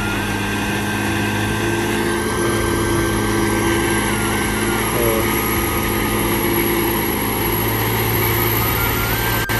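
Loaded truck's engine running steadily under heavy strain on a muddy uphill, short of pulling power.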